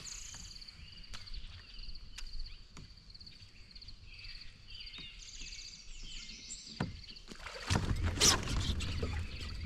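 Quiet lake ambience from a fishing kayak: faint high bird chirps, a steady high buzz and a few light clicks. About seven and a half seconds in, a sudden loud burst of water splashing and knocking around the kayak starts and keeps going.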